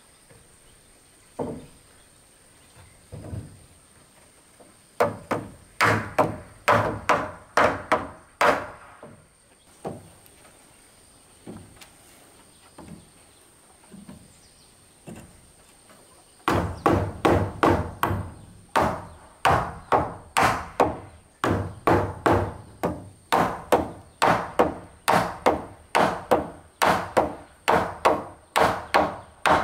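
Hammer blows on a wooden railing post, each a sharp knock with a short ring. There are a few single knocks, then a quick run of about eight. From about halfway, the blows come steadily, about two a second.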